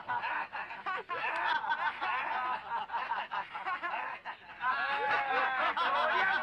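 Several men's voices overlapping, shouting and laughing in jeers. The jeering grows louder and busier a little over halfway through.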